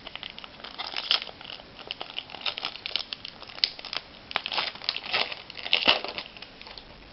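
Crinkling of foil trading-card pack wrappers being handled, in irregular crackly bursts that die away near the end.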